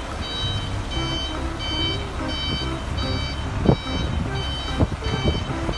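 Truck reversing alarm beeping with a high tone, about twice a second, over the low rumble of the truck's engine.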